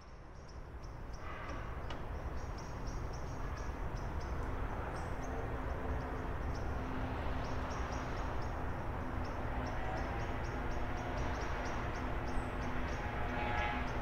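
Outdoor evening city ambience: a steady low rumble of distant traffic with short, high chirps repeating many times through it. It fades in over the first couple of seconds.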